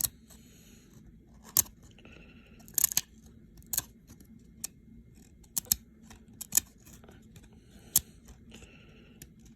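Baseball cards and pack wrappers being handled: a string of sharp snaps and clicks, about seven, irregularly spaced, with soft papery rustling between them.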